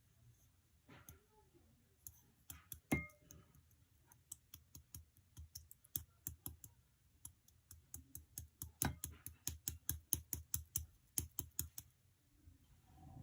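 Light, irregular clicking taps that come thicker and faster in the second half, at about three to four a second.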